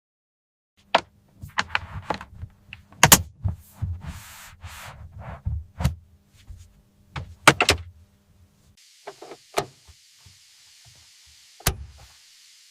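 A series of irregular sharp knocks and clicks over a low steady hum. About nine seconds in, the hum stops and a steady hiss starts, with a few more clicks.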